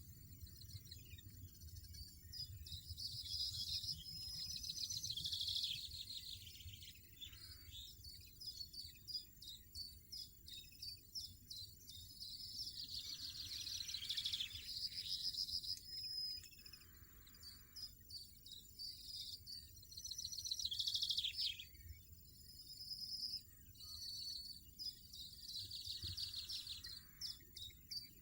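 European goldfinches twittering in repeated bursts of high, rapid chirps, with short pauses between bursts, over a faint low rumble.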